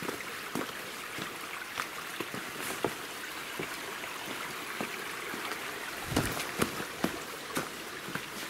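Footsteps on loose stones in a rocky streambed, about two steps a second, louder from about six seconds in, over a steady trickle of shallow stream water.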